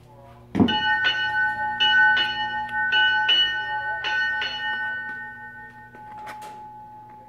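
A ship's bell struck eight times in four quick pairs, the way ship's bells are rung to mark the time, its ring fading away over the following seconds. A short knock comes near the end.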